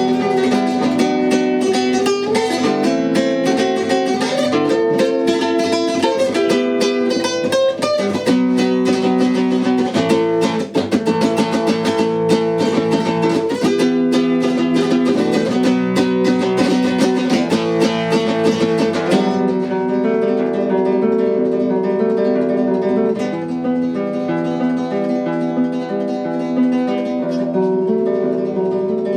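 Acoustic guitar music, plucked and strummed. About two thirds of the way in, it turns softer and duller.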